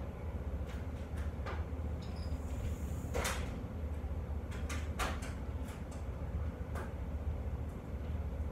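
A steady low hum with scattered short knocks and clicks, like handling things or a door or cupboard being moved. The loudest knock comes about three seconds in and another about five seconds in.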